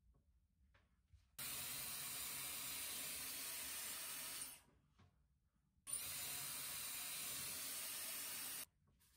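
Dyson Airwrap hair styler blowing air through its round brush attachment: a steady rush of air in two spells of about three seconds each, the second cutting off abruptly.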